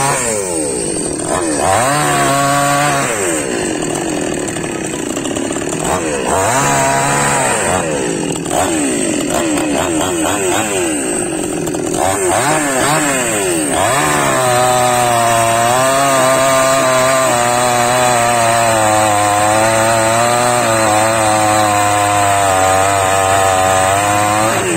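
Small two-stroke petrol chainsaw cutting through wood logs. Its engine pitch drops sharply several times as the chain bogs down in the cut and climbs back each time. Through the second half it holds a high, slightly wavering pitch.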